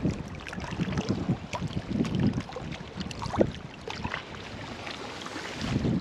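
Seawater lapping and sloshing in a rock crevice at the water's edge, in irregular swells, with wind buffeting the microphone and a few small clicks and knocks.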